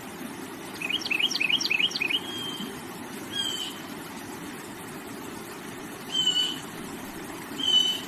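Water flowing steadily over rocks, with a bird calling above it: a quick run of about six chirps about a second in, then three short whistled notes spaced a few seconds apart, the last near the end.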